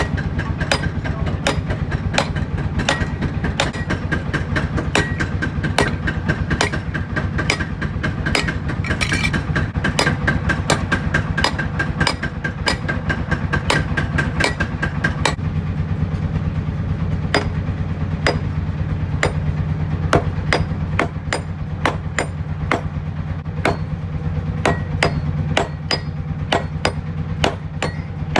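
Hand hammer forging a hot steel sickle blade on an anvil: steady metal-on-metal blows at about two a second, with a ringing tone in the first half, over a steady low hum.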